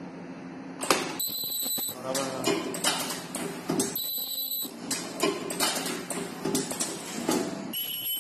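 KN95 mask-making machine running: a steady low hum, then from about a second in a busy run of repeated mechanical clatters and knocks. The clatter is broken by short bursts of a high steady tone, shrill like an alarm, that come and go several times.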